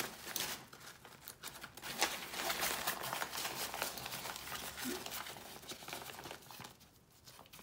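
Crinkling and rustling of the Zpacks Arc Haul backpack's nylon gridstop fabric as hands handle and fold its roll-top closure, in irregular short scrunches that die down near the end.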